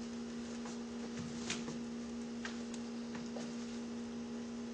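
Steady electrical hum, mains-type, with a few faint clicks scattered through.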